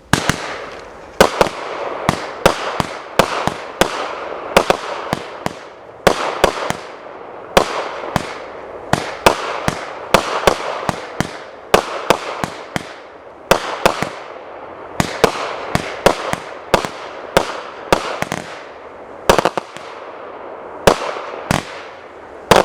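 Consumer firework repeater cake firing a long string of shots: sharp bangs about one to two a second, each followed by hissing and crackling.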